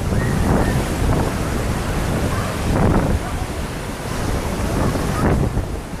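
Wind buffeting the microphone over surf washing onto a beach, the waves swelling louder about every two to three seconds.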